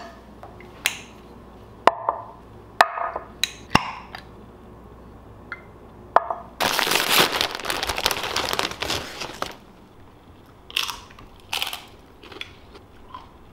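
A kitchen knife knocking and scraping on a wooden cutting board, about six sharp knocks in the first four seconds. About halfway through comes a few seconds of loud crackling noise, and near the end a couple of short crunches of tortilla chips being eaten.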